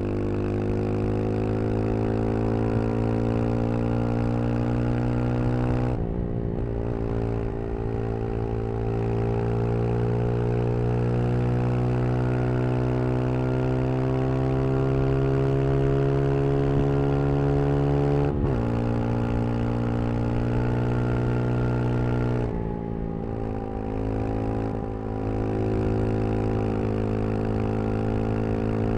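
Brixton Crossfire 125 XS's small single-cylinder four-stroke engine pulling under throttle, its pitch climbing steadily through each gear and dropping sharply at upshifts about six and eighteen seconds in. It eases off about three-quarters of the way through and runs at a steadier, lower pitch.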